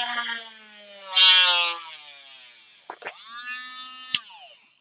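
Drill Master cordless rotary tool with a small drill bit, its motor whine falling in pitch as it slows, with a loud burst of drilling noise about a second in. It is switched on again with a click near three seconds in, spins up to a steady whine, and is switched off with another click about a second later, winding down.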